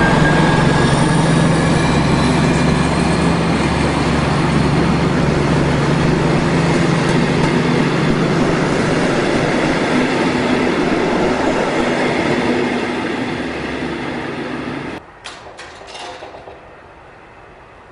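DB class 218 diesel-hydraulic locomotive passing close by under power, its engine humming steadily over the rolling noise of the wheels on the rails as its passenger coaches go by. About fifteen seconds in the sound drops suddenly to a much quieter background with a few short clicks.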